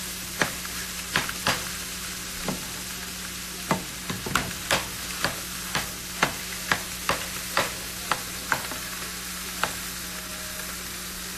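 Wet extra-firm tofu sizzling steadily in a pan of hot non-dairy butter while a spoon breaks it up, knocking and scraping against the pan about twenty times at an uneven pace.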